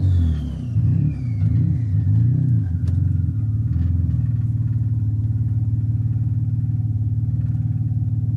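Cadillac ATS-V's twin-turbo V6 coming down off the throttle as the car rolls to a stop, with a high whine falling in pitch over the first three seconds, then settling into a steady idle with an even pulse.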